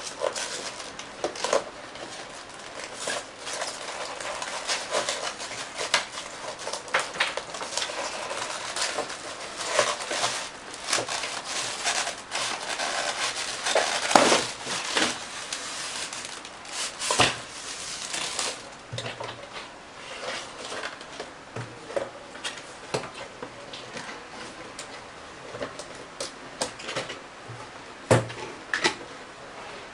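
Cardboard box and polystyrene packing tray being handled and unpacked: rustling, scraping and many small knocks and taps, with a few louder knocks.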